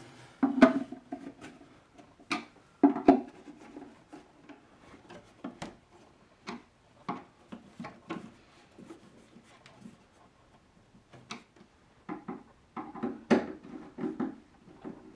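Wooden cabinet panels knocking and bumping as they are fitted together, with scattered clicks and scrapes from a hand screwdriver turning connector bolts into the wood. A few knocks stand out as louder, about half a second in, near three seconds and in a cluster near the end.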